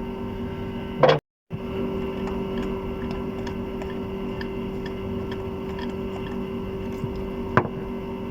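Steady electrical hum, with faint regular ticking about twice a second through the middle. A sharp click comes about a second in, followed by a brief cut to silence, and another sharp click comes near the end.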